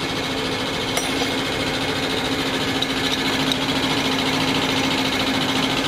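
High-pressure supply pump of a Bosch diesel injection-pump test bench running with a rapid, steady hammering and a constant hum, feeding diesel at about 25 bar into an inline injection pump for a pre-stroke timing check.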